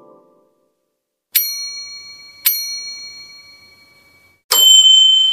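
Three struck bell dings, each ringing on and fading. The first two are alike and about a second apart. The third, a little under 5 seconds in, is louder and brighter, with a splashier attack.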